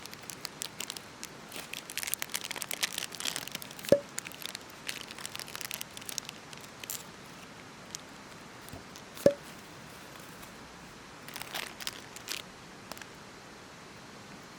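Irregular crackling and crinkling in two spells, with three sharp knocks, one about 4 seconds in and another about 9 seconds in.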